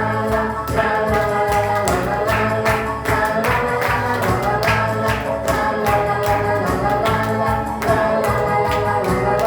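Instrumental break of a children's song: recorded music with sustained melody notes over a steady beat.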